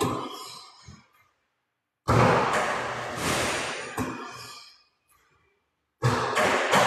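Sounds of basketball shooting practice in a gym with a ball-return shooting machine. Twice a noisy stretch starts abruptly and fades away over two to three seconds, with a few sharp knocks, and dead silence falls between the stretches where the footage is cut.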